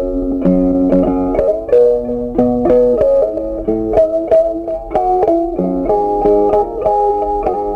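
Background music: a plucked guitar playing a melody with a steady beat.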